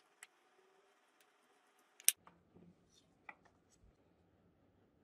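Light handling of a leather strip and small hand tools on a wooden bench: scattered clicks and taps, with one sharp click about two seconds in.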